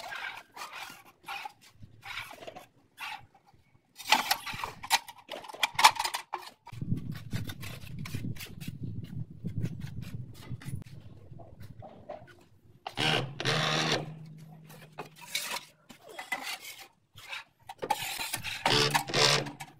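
Tile-setting work: a manual rail tile cutter clicks and scrapes as its wheel scores a ceramic wall tile, then a trowel scrapes as it spreads tile adhesive on the back of a tile. Later come two louder bursts of noise, each with a low steady hum.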